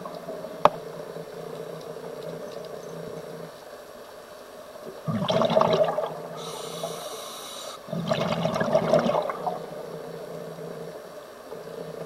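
Scuba diver breathing through a regulator underwater: two loud rushes of exhaled bubbles about three seconds apart, with the thin hiss of an inhale between them. There is a single sharp click just after the start, over a steady low hum.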